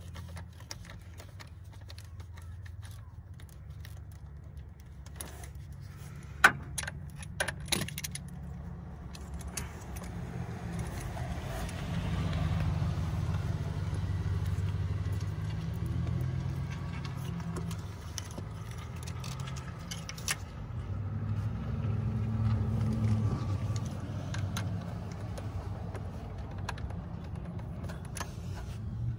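Hand tools and metal parts clinking and rattling in a car's engine bay, with sharp clicks about six to eight seconds in and again around twenty seconds, over a steady low rumble. Near the end, a socket driver turns the hose clamp on the air intake duct at the throttle body.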